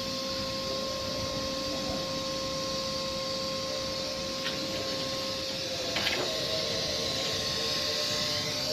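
Steady machinery noise: an even hiss with a constant high-pitched hum, and two short clicks about four and a half and six seconds in.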